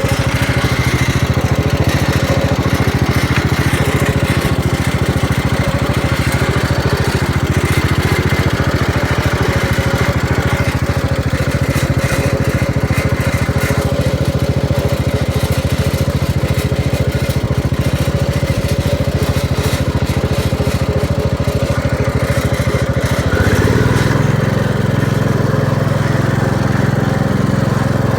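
Rebuilt Kohler K321 single-cylinder engine of a 1969 Gravely 432 tractor running steadily; about 23 seconds in its speed picks up and the note rises.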